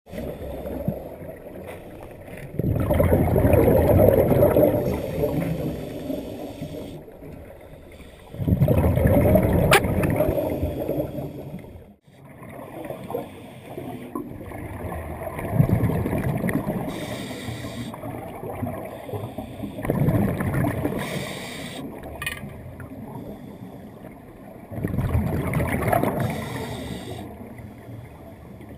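Scuba breathing heard underwater: a loud bubbling rush of exhaled air from a diver's regulator about every five or six seconds, with a quieter rushing between breaths.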